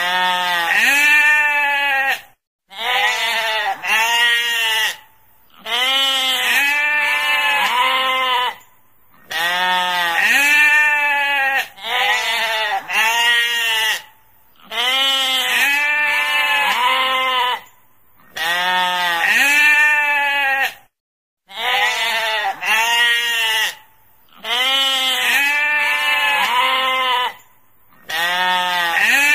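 Sheep bleating again and again: loud, quavering baas, each lasting two to three seconds, with short pauses between them.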